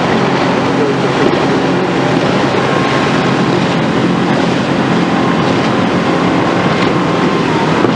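Rigid inflatable speedboat's outboard engine running at speed: a steady drone under a continuous rushing hiss.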